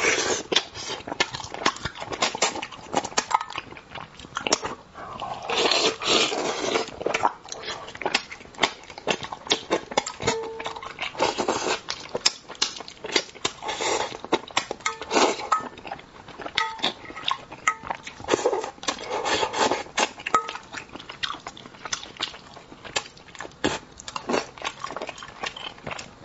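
Close-miked eating of spicy braised crucian carp: irregular wet mouth clicks, smacks and chewing, with a few longer, louder stretches every several seconds.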